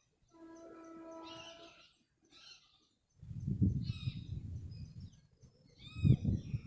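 Wind gusting against the microphone from about three seconds in, with short arched bird calls over it, several near the end. In the first two seconds a single held pitched tone sounds for about a second and a half.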